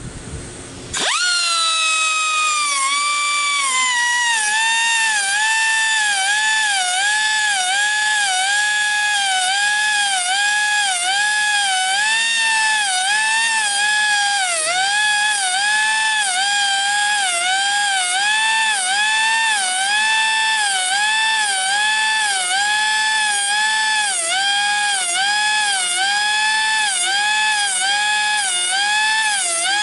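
Air-powered grinder running at a high-pitched whine while sharpening the teeth of a sawmill band blade, starting about a second in. Its pitch dips about once a second as it bears on each tooth face in turn, and it stops at the very end.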